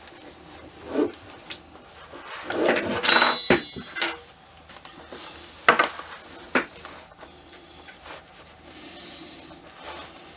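Handling noises as a ball-jointed doll is dressed and turned over: cloth rustling, loudest a few seconds in, and a few sharp clacks as the doll's parts knock against the mat and each other.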